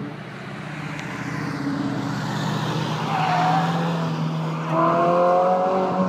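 Sports car engines running as cars drive past, with a steady low engine note. About five seconds in, one engine revs up loud, its note rising as the car accelerates.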